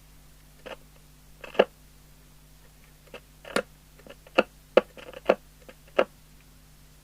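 A string of about a dozen irregular sharp clicks and knocks over a faint steady hum: the controls of an Amstrad CB901 CB radio being worked, its PA switch and volume control dirty. The loudest click comes about one and a half seconds in, with several more between four and six seconds in.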